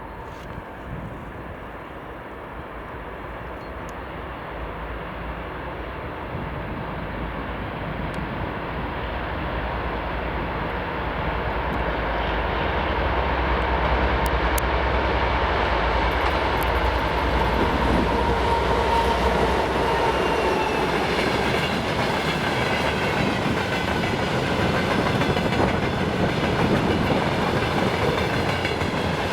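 2TE10M twin-section diesel locomotive, with 10D100 two-stroke opposed-piston diesel engines, hauling a freight train up a grade under heavy load. It grows steadily louder as it approaches over the first half, then the train's steady rumble carries on as it passes.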